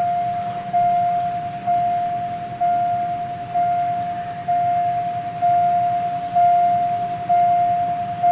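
Railway level-crossing warning bell ringing, about one strike a second, each strike a single clear tone that rings on and fades until the next: the crossing signal is active.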